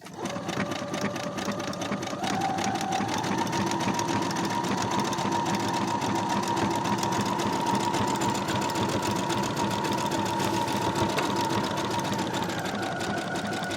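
Brother SQ9285 sewing machine running steadily, its needle stitching fast around the edge of a fabric heart appliqué. It speeds up about two seconds in and slows just before it stops at the end.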